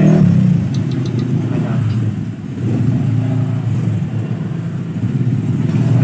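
Steady low engine rumble, like motor vehicles running, with a few faint clicks about a second in.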